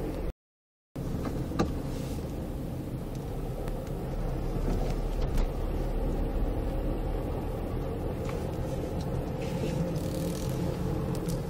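Steady low rumble of a car's engine and tyres on the road, heard from inside the cabin, with a few small knocks. The sound cuts out completely for about half a second near the start.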